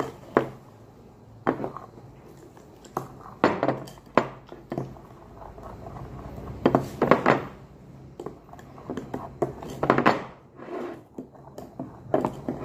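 A utensil stirring thick pancake batter in a glass bowl, clinking and scraping against the glass in irregular strokes.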